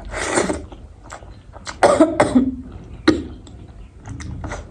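A woman coughing in a few sharp fits, set off by the chilli-hot food she is eating.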